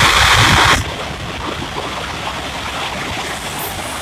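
A CRH high-speed train passes at speed with a rushing sound of air and rolling noise. The rush is loud at first, drops sharply about a second in, and then goes on steadily at a lower level with a low rumble.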